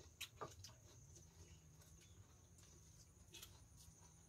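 Near silence, with a faint steady high hiss and a few soft clicks, most of them in the first second.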